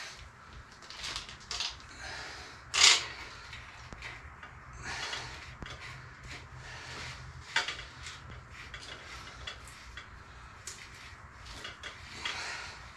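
Scattered clicks, clinks and knocks of small metal parts and hand tools being handled while the bearing seal, nuts and lock ring are fitted onto a Yamaha Road Star's steering stem. The loudest knock comes about three seconds in.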